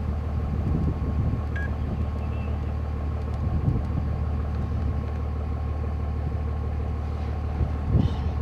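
Vehicle engine idling steadily: an even low hum.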